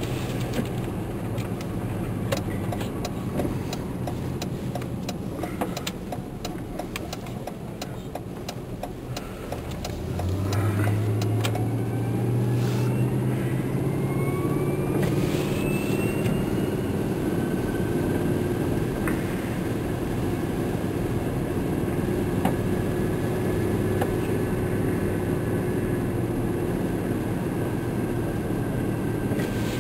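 Vehicle engine at low revs with scattered clicks for about ten seconds, then speeding up with a rising whine and running steadily as it drives on through snow.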